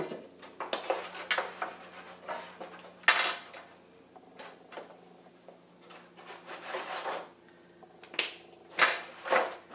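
Construction paper being handled and laid over a cardboard box: irregular rustling and crackling with sharp taps and clicks, the loudest about three seconds in and a cluster near the end. In between, quieter scratching as a pen traces along the paper.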